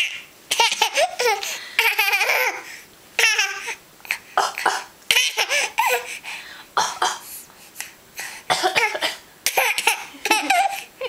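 A baby laughing and giggling in repeated bursts, mixed with short put-on coughs that imitate an adult's cough.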